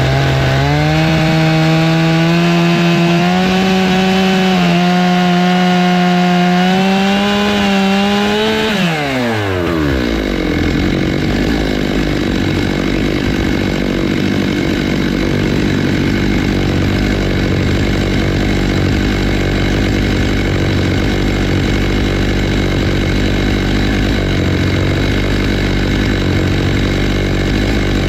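Stihl MS 661 two-stroke chainsaw on a Logosol F2 Plus chainsaw mill, running at high revs with its pitch slowly climbing. About nine seconds in the pitch drops steeply, and the saw runs on with a lower, rougher, noisier sound.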